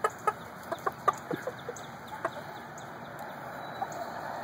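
Chickens clucking: short calls, scattered, most of them in the first couple of seconds.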